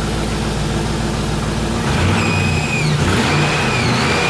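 Land Rover V8 engine idling, then revved by hand at the throttle in about three short blips starting about two seconds in. A high whistle rises and falls with the revs, which the owner puts down to the belts.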